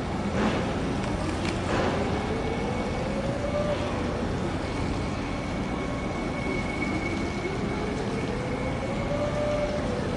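Steady engine rumble with a whine that rises in pitch twice, for about two seconds each time, and then levels off.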